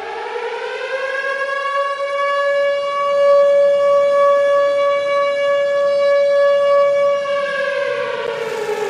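Siren wailing: one tone that rises over the first second, holds a steady pitch, and falls away near the end. It is the siren sounded for the 17 August Independence Day proclamation moment.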